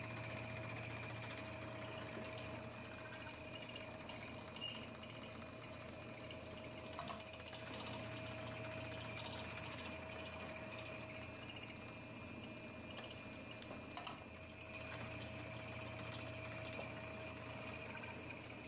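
Automatic honeycomb uncapping machine running with a steady hum and whine as frames pass through it, with a few short knocks about 5, 7 and 14 seconds in.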